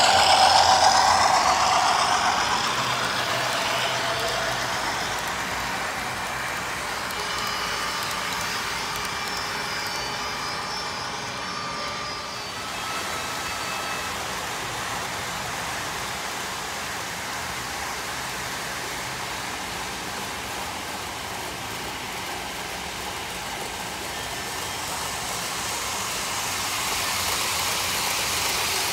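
Model trains running on the layout's track: a loud pass close by in the first two seconds, then steady rolling noise with a faint motor whine, swelling again near the end as a high-speed EMU model passes close.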